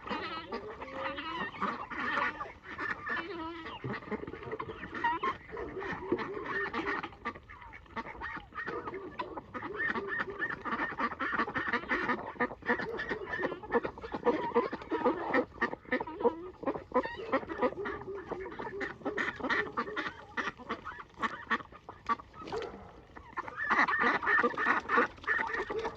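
A flock of farmyard poultry calling, many overlapping calls throughout, growing louder near the end.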